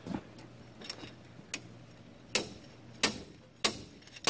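Slide hammer being yanked to pull a CV axle out of its differential against the axle's retaining C-clip. After a few light metal clinks, the sliding weight slams into its stop in sharp metal clanks, four of them from about halfway in, roughly one every 0.6 seconds.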